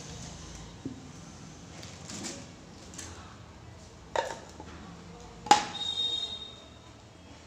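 Hands handling a cylindrical watch box and its lid: a few light taps and knocks as the box is turned and the lid is fitted. The loudest knock comes about five and a half seconds in and is followed by a brief high ringing.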